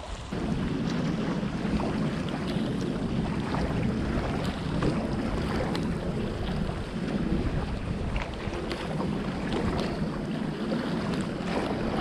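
Steady wind noise buffeting the microphone in heavy rain, louder from just after the start, with many small sharp ticks of raindrops striking close by.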